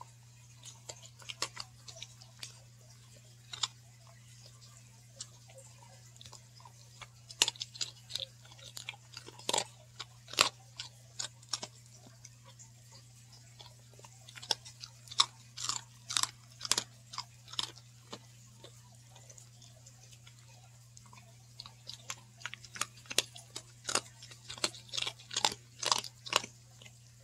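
A dog crunching and chewing a hard baked dog cookie. The crunches come in quick runs: a few around the start, a long run from about 7 to 12 seconds in, another around 15 to 17 seconds, and a dense run near the end, with quiet pauses between. A faint steady low hum runs underneath.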